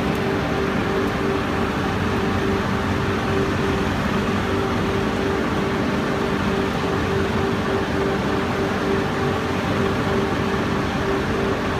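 Textile waste recycling machinery running as it delivers a layer of opened cotton fibre: a loud, steady mechanical din with a humming tone that pulses evenly about three times a second.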